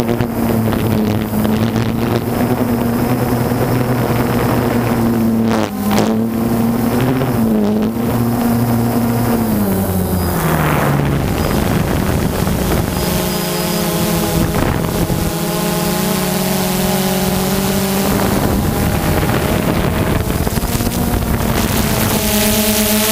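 Multirotor drone's electric motors and propellers humming steadily, heard through the onboard camera. The pitch dips about ten seconds in and rises slightly near the end as the motors change speed.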